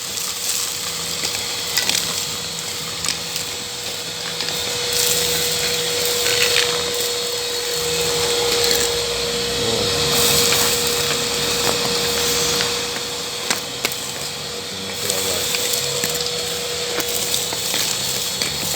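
Makita VC3011L construction vacuum running with a steady whine while it sucks up sand and small stones, with grit and pebbles clattering through the hose.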